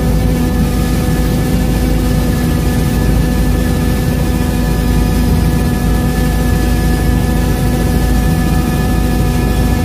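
Robinson R66 turbine helicopter in cruise flight, heard from inside the cabin: a loud, steady rotor and engine drone with a low rumble, several steady held tones above it and a hiss over the top.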